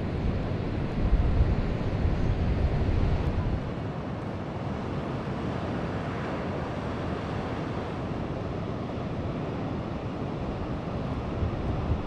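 Large storm swells breaking against rocks in strong wind, with gusts buffeting the microphone in the first few seconds, then a steady rush of surf.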